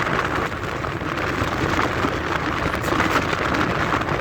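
Wind buffeting the microphone: a steady, rushing noise.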